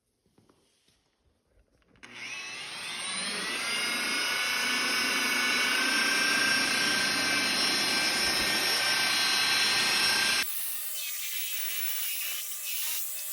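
An electric buffer with a wool pad starts up about two seconds in, its whine rising as the motor spins up, then runs steadily while cutting compound into painted metal. About ten seconds in, the sound changes abruptly to a thinner hiss with the low end gone.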